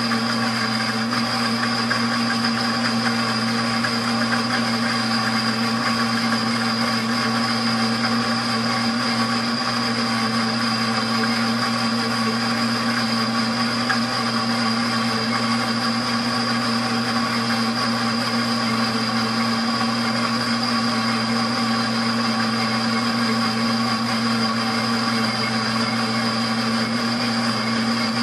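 Pampered Chef Deluxe Cooking Blender running steadily on its grind setting, its blades churning honey roasted peanuts into peanut butter late in the grind as the butter turns creamy. A loud, even motor whine over a rushing noise, holding one pitch throughout.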